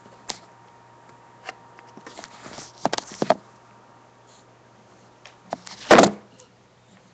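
Handling noise from the recording phone: scattered clicks and knocks, with a loud thump about six seconds in as the phone is moved and its camera covered.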